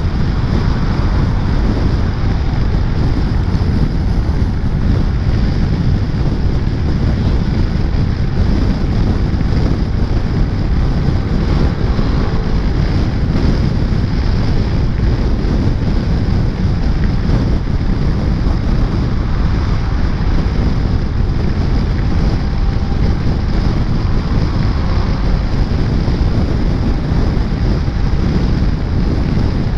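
Steady, loud wind rumble on the microphone of a scooter riding at speed, drowning out the engine and road noise.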